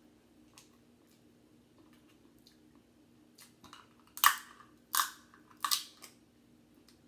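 Crab shell being cracked and crunched while eating, with small clicks and chewing sounds, then three loud sharp cracks in quick succession about four seconds in.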